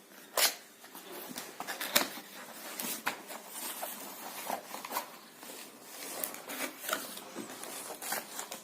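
Cardboard keyboard box being opened by hand: a run of scrapes, rustles and sharp clicks as the flaps and packaging are pulled apart, the loudest snaps about half a second and two seconds in.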